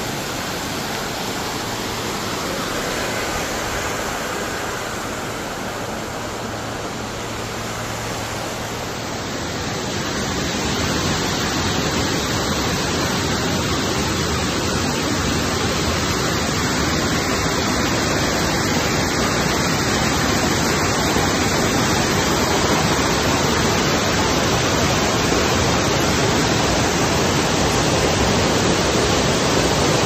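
Silver Waterfall's cascade rushing over rocks as a steady hiss of falling water, louder from about ten seconds in.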